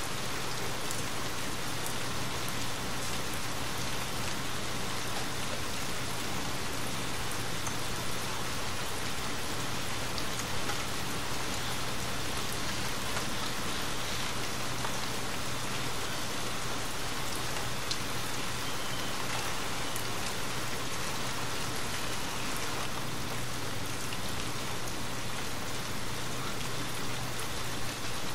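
Steady rain falling, an even, dense patter with a few faint single drop ticks.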